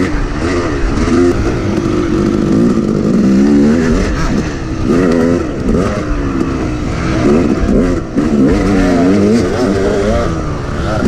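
Yamaha YZ250 two-stroke dirt bike engine revving up and down with the throttle under a riding rider, its pitch rising and falling every second or so, with rough low rumble from the track and wind.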